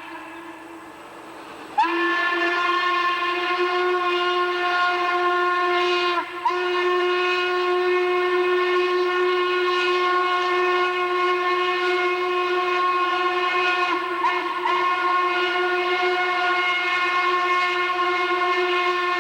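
Steam locomotive whistle blowing one long steady blast that starts sharply about two seconds in, breaks off briefly around six seconds, then sounds again and holds.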